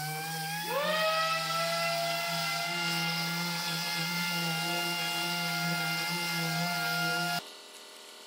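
Dual-action orbital sander sanding body filler on a car panel: a steady whine that rises in pitch as it speeds up about a second in, then holds steady before stopping abruptly near the end.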